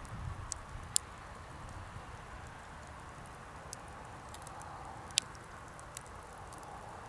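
Wood fire crackling: scattered sharp pops over a faint steady hiss, with two louder snaps about a second in and about five seconds in.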